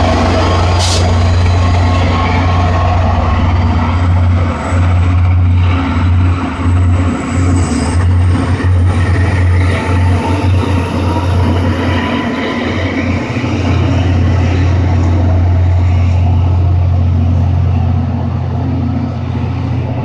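EMD GP40MC diesel locomotive pushing a commuter train away from the station, its engine working hard as it throttles up slowly, described as struggling to throttle up. Heavy wind rumble on the microphone runs under it.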